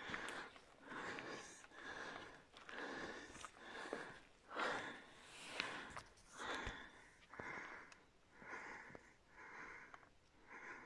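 A person breathing heavily close to the microphone, a steady run of breaths in and out about once a second, with a couple of faint clicks.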